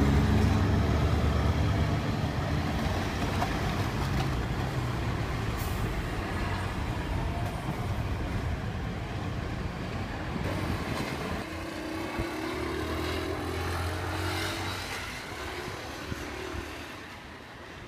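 Road traffic at a level crossing: heavy vehicles such as buses and trucks driving past, engine noise loudest at first and fading away, with another engine passing about twelve to fifteen seconds in.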